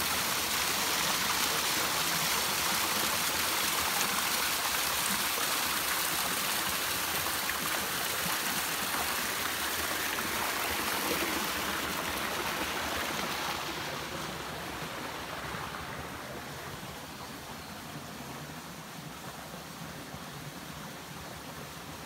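Rushing water of a mountain stream, a steady hiss that grows fainter about two-thirds of the way through.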